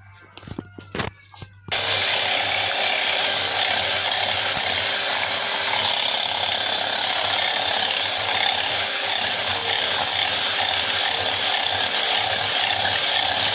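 A few light knocks, then an electric hand mixer switches on about two seconds in and runs steadily with its beaters whisking egg, butter and sugar in a glass bowl.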